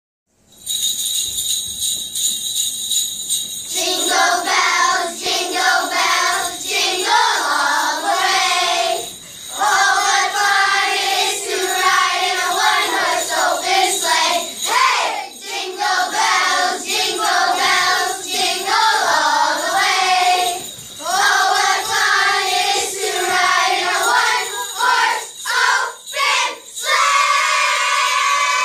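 Jingle bells shaking alone for the first few seconds, then a class of children singing a Christmas carol together, with the bells ringing along.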